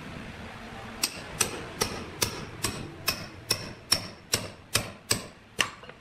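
A hammer striking a metal spike into the end of a log, about a dozen sharp ringing blows at roughly two and a half a second, starting about a second in and stopping just before the end.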